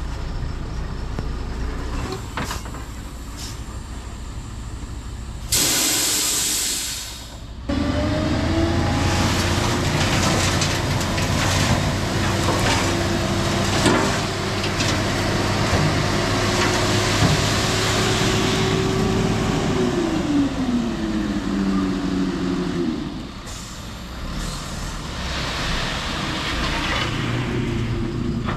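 Heavy diesel engine running, with a loud hiss of released air lasting about two seconds, about six seconds in. The engine then works at high revs with a steady tone, and its pitch falls away about twenty seconds in as it slows down.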